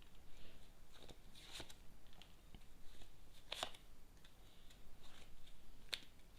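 Tarot cards being shuffled and handled: scattered soft papery flicks and a few sharper snaps.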